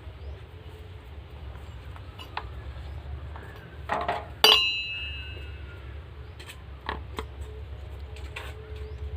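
Metal parts of a mixer jar's blade assembly clicking and clinking as they are handled and fitted. There is one loud, ringing metallic clink about four and a half seconds in, over a steady low hum.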